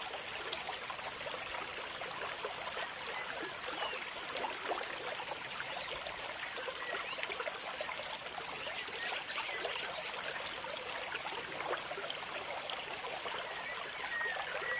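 Steady sound of running water, like a trickling stream, with a few faint high chirps.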